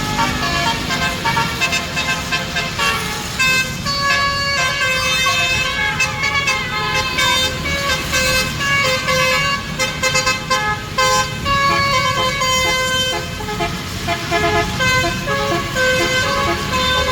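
Basuri (telolet) musical air horn on an Andaru Utama bus playing a tune: several horn tones sounding together and stepping from note to note every fraction of a second, without a break.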